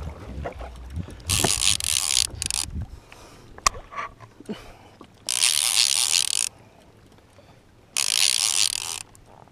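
Fishing reel drag buzzing in three short runs of about a second each as a hooked mahi-mahi pulls line off against it.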